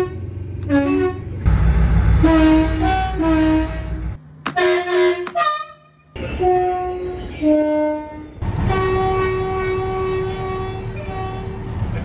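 Two-tone train horns sounded from inside the driving cab in several short clips: quick blasts alternating between a low and a high note, ending in one long held note.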